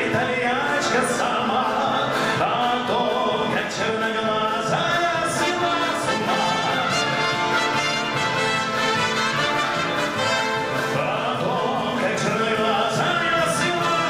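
Military wind band of brass and woodwinds playing a song accompaniment, with a male singer's voice over it at times.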